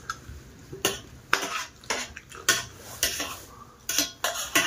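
Fingers scraping and tapping a stainless steel plate: a string of short, irregular metallic scrapes and clicks, roughly two a second, as the last food is wiped off the plate.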